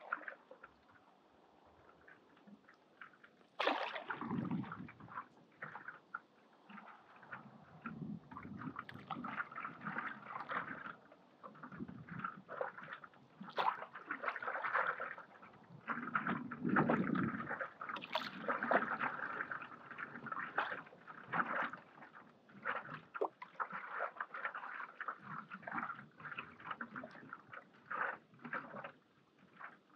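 Stand-up paddle strokes through lake water, with water moving against the paddle and board in irregular bursts; one sharper stroke about four seconds in.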